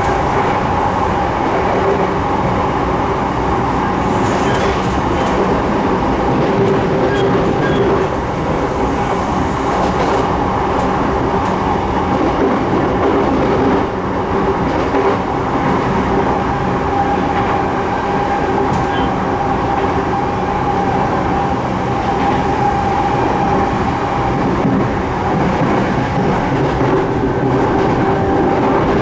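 Sotetsu 12000 series electric train heard from on board while running: a steady rumble of wheels on rail with a hum held at one pitch, as the train travels at a constant speed.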